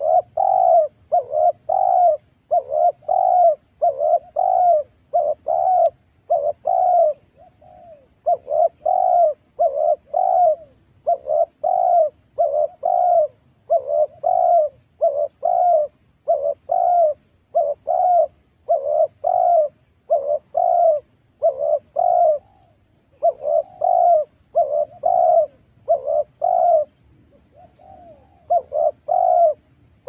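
Spotted dove cooing, a lure call: short coos at about two a second, in runs broken by brief pauses.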